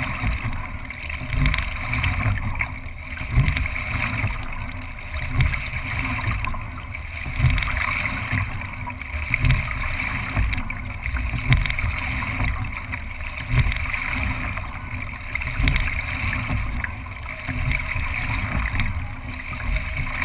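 Racing single scull under way, heard from a camera mounted on its deck: a steady rush of water and hull rumble, with a low knock about every two seconds as each stroke is taken.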